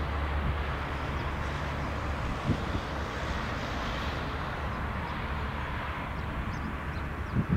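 Jet airliner engines running on the airfield: a steady, even noise of engine and runway sound, with a low hum that fades after about a second and a brief low thump near the end.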